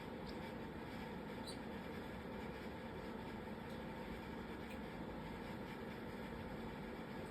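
Steady low room hum with a few faint, very short high-pitched squeaks from a Pacific parrotlet being scratched.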